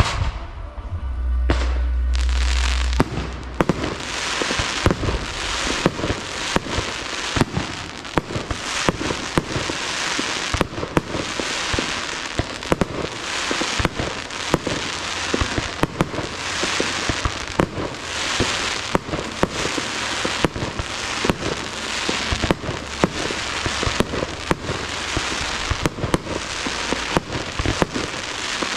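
Fireworks display: a dense, irregular barrage of bangs and crackling from aerial shells bursting and launching. A deep low rumble comes about two seconds in.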